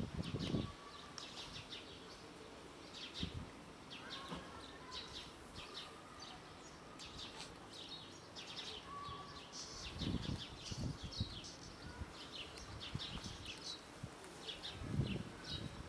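Small birds chirping over and over, short high chirps several times a second, with a few brief low rumbles about ten seconds in and near the end.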